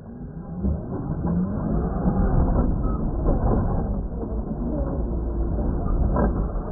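Traxxas X-Maxx RC monster truck landing from a jump about half a second in, then its brushless electric motor whining up and down in pitch as the truck spins and wheelies, with a heavy rumble of tyres churning loose dirt.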